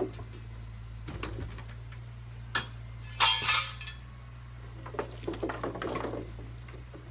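Knocks and clatter of loose gear being handled and moved about inside a small boat as it is emptied, with a loud metallic rattle about three seconds in and a run of softer knocks and rubbing near the end, over a steady low hum.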